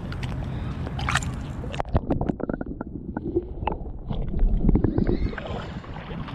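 Shallow water sloshing and gurgling as a flathead is lowered in by hand and released, with irregular splashes and knocks. The sound turns muffled and bubbly while the camera is under the surface.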